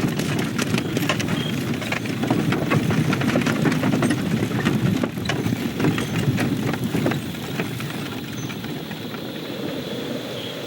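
Animated-film sound effects: a dense low rumbling noise with many sharp crackles and ticks scattered through it. It eases off about two-thirds of the way in.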